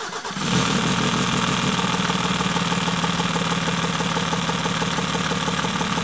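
Mercedes OM603 3.0-litre inline-six diesel idling steadily with a rapid, even clatter while it runs on undiluted injector cleaner fed from a bottle instead of diesel, purging the injection system. The sound starts suddenly right at the beginning.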